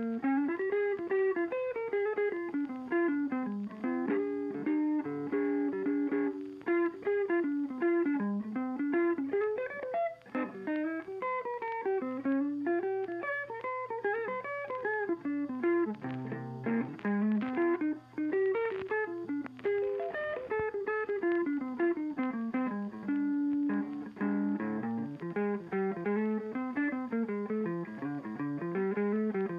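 Instrumental background music led by guitar playing a moving melody.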